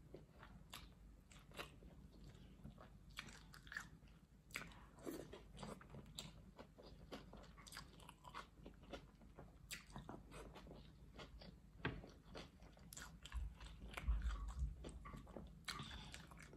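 Close-up chewing of fried plantain and fried egg: wet mouth sounds with many short clicks and smacks as the food is bitten and chewed. A low rumble near the end is the loudest moment.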